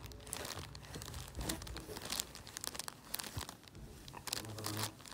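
Irregular soft clicks and crackles of a baby gumming a silicone teether close to the microphone.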